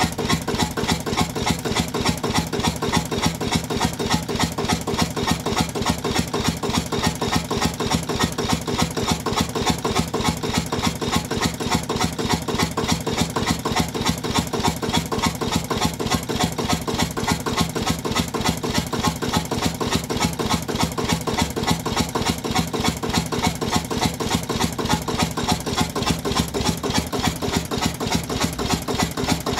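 1937 Ruston & Hornsby 1XHR single-cylinder horizontal diesel stationary engine running steadily, with an even, regular firing beat.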